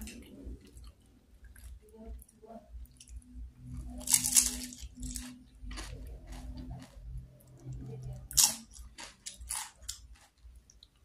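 Chewing and crunching of crispy fried batagor (fish dumplings and tofu) in peanut sauce, eaten from a spoon. Irregular short crunches and mouth noises, the loudest about four seconds in and again about eight seconds in.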